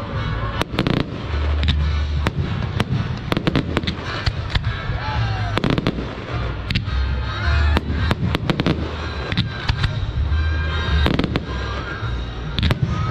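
Fireworks display going off continuously: deep booms of shells bursting every second or two, mixed with rapid sharp bangs and crackling.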